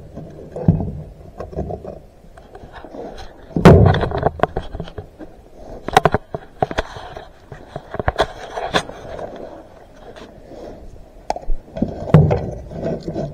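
Irregular clinks, knocks and scrapes of hand tools and small metal parts being handled against a cast shifter cover on a workbench, with a louder knock about four seconds in.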